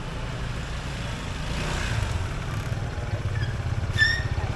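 Motorbike engine running with a steady low, pulsing rumble that grows a little louder about one and a half seconds in. A short high-pitched tone sounds once near the end.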